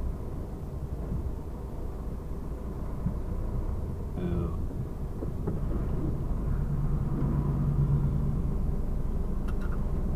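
Lorry's diesel engine idling with the truck at a standstill, a steady low rumble.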